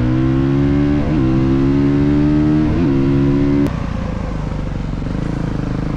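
Dirt bike engine accelerating hard, its pitch climbing through two quick upshifts about 1 and 3 seconds in. About 3.7 seconds in the throttle is shut and the engine drops to a lower, steady run.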